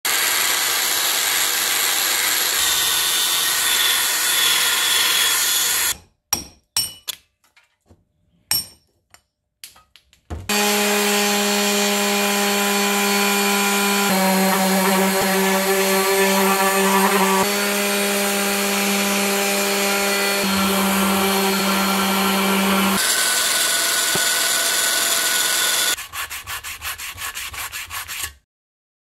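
Electric random orbital sander running and sanding paint off a green pedal-tractor part, with a steady motor hum; it stops and starts in short bursts for a few seconds near the start. Near the end come rapid, even strokes of sandpaper rubbed by hand over the tractor's metal hood.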